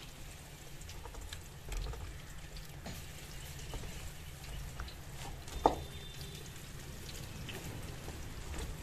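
Pakora batter frying in hot ghee in a kadhai: a faint, even sizzle with small crackles. One sharp knock a little past halfway through.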